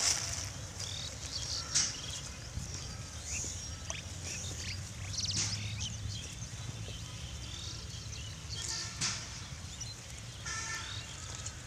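Farm animal ambience: scattered short, high calls and chirps over a low steady hum, with a longer pitched call near the end.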